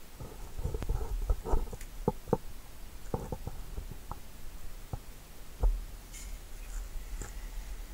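Handling noise: a low rumble with scattered soft knocks and faint rustling, mostly in the first six seconds.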